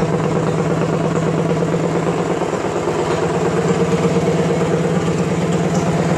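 Go-kart engine with a loud exhaust running steadily at one pitch.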